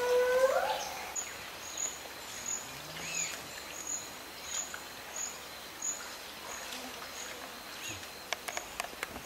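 A wild animal's long, rising call that ends about half a second in, followed by a short, high chirp repeated about every two-thirds of a second, with a few sharp clicks near the end.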